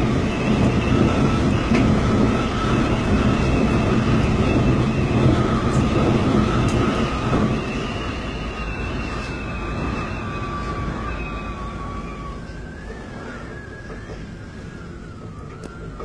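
Typhoon Hato's gale and heavy rain: a dense rushing noise with a wavering high whistle of wind over it. The rush eases about halfway through, and near the end the whistle shifts higher and wobbles more.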